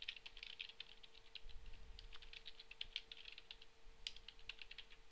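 Computer keyboard typing, faint, in quick runs of keystrokes broken by short pauses, over a faint steady hum.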